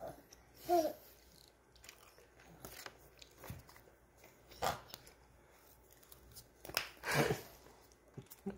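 Snack food being crunched and chewed up close in short, irregular bursts, the loudest about seven seconds in, with a short pitched sound about a second in.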